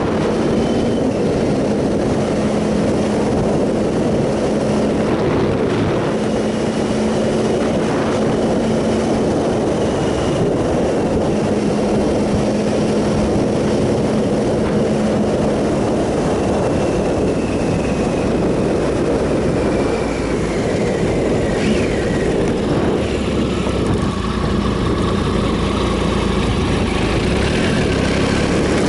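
2007 Triumph Sprint ST 1050's inline three-cylinder engine running on the move, its note holding steady for most of the time and dipping slightly in the second half, under heavy wind and road rush.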